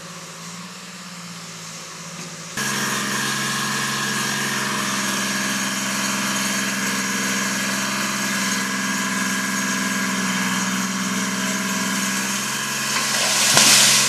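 Dynahoe 190 backhoe engine running steadily, turning abruptly louder about two and a half seconds in as it pushes against a large tree under load. Near the end the tree comes down with a loud, brief crash of snapping and rustling branches.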